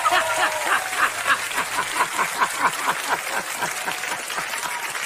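A man laughing heartily in rapid repeated bursts, about four a second, fading toward the end.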